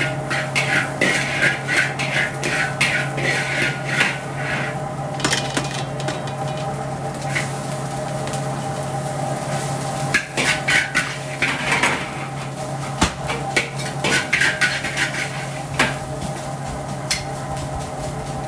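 Metal wok spatula and ladle scraping and clanking against a large carbon-steel wok while stir-frying fried rice, thinning out to a few strokes in the middle and picking up again, over a steady low hum.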